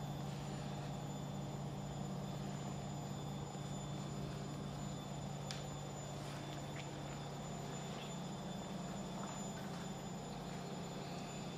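A steady low hum with a thin, faint high-pitched whine above it, and a few faint clicks.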